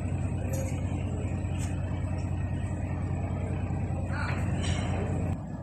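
A large engine runs steadily with a low hum and drops away abruptly near the end.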